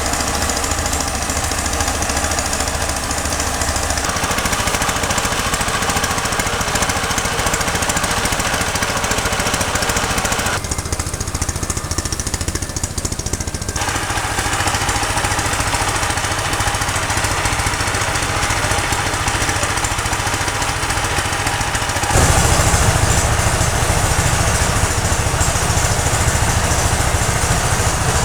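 A small engine runs steadily with a rattling, knocking quality. Its sound changes abruptly a few times and is louder for the last several seconds.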